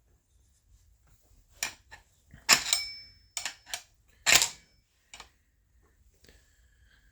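A hammer striking metal on a chainsaw being taken apart: about six sharp metallic knocks, the two loudest about two and a half and four seconds in, one of them ringing briefly. A short high tone sounds near the end.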